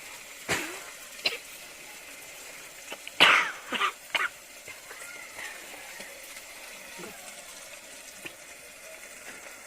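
Fish pieces frying in oil in a pan, a steady sizzle. It is broken by a few short, loud sounds, a cluster of them around three to four seconds in being the loudest.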